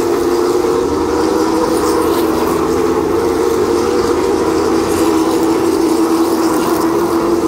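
A field of stock cars racing around a short oval: their V8 engines blend into one steady, loud drone.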